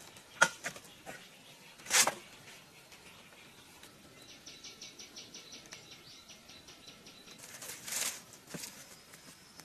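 Bamboo poles knocking against a bamboo frame as a pole is set in place: two sharp knocks in the first two seconds, then a scraping rustle about eight seconds in. Rapid high chirping, about six a second, runs in the background from about four to seven seconds.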